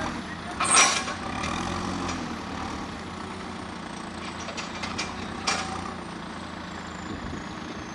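JCB 3CX backhoe loader's diesel engine running steadily, with a loud sharp clatter about a second in and a smaller one about five and a half seconds in.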